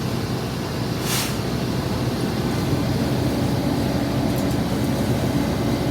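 Heavy vehicle engine running steadily with a low rumble, with a short hiss about a second in.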